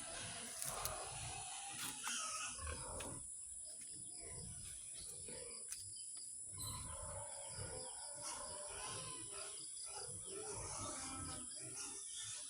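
Faint, intermittent farm-animal sounds.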